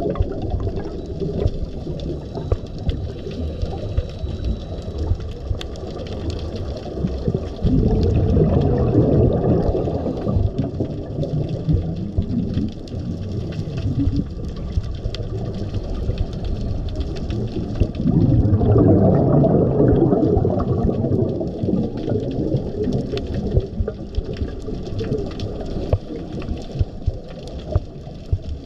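Underwater sound picked up through the camera's housing: a steady low rumble with scattered small clicks. A louder bubbling rush comes twice, about 8 seconds in and again around 18 seconds, typical of a scuba diver's exhaled regulator bubbles.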